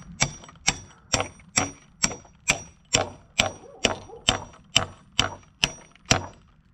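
Hammer blows on a steel bolt head set in the wooden leg of a timber gantry crane: about fourteen evenly paced strikes, roughly two a second, each with a short metallic ring.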